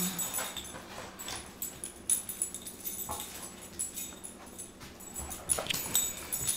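Two young dogs playing tug of war with a stuffed toy: paws and claws scuffling and clicking on a hard floor, with a few short whimpers.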